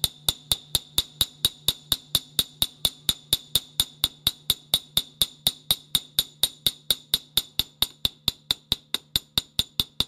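A small 4-ounce Mac ball peen hammer tapping lightly and evenly on the head of an old mild-steel gun screw, about five quick strikes a second, each with a short metallic ring. The taps peen the twisted-up metal back into the damaged screw slot.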